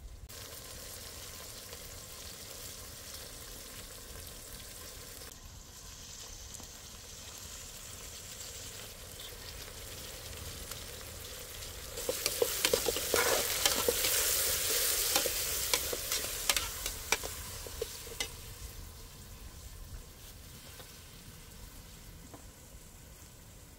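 Food frying in hot oil in a pan: a steady sizzle that swells about halfway through into loud spitting and popping for several seconds, then settles back to a quieter sizzle.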